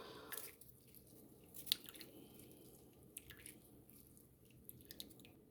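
Faint squishing, with a few light clicks and a sharper one about 1.7 seconds in: half a lemon being squeezed by hand over a cup of hot tea.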